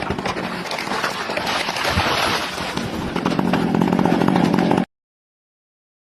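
Chainsaw engine running steadily under a noisy wash with many short clicks, then the sound cuts off abruptly to dead silence about five seconds in.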